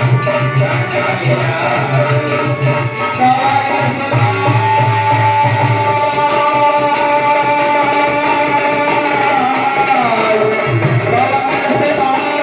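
Indian devotional folk music: a melody holding one long note for several seconds, over a pulsing drum beat with jingling hand percussion like a tambourine.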